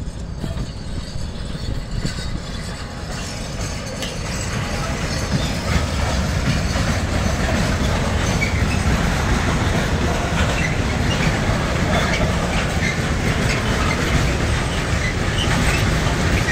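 Freight train rolling past, its wagons' wheels rumbling on the rails with scattered clicks and short squeaks; it gets louder about six seconds in.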